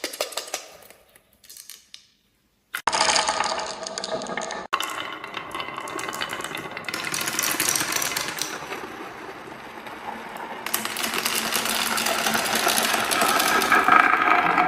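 Marbles rolling and clattering down a marble run, a dense stream of rapid clicks and rattling. It starts after a brief silence about three seconds in and grows louder toward the end.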